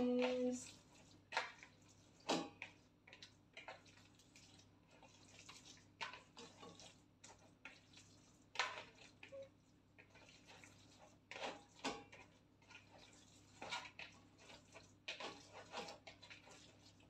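Hand squishing and mixing raw ground-meat and rice filling in a plastic bowl: irregular soft wet squelches, with a faint steady hum underneath.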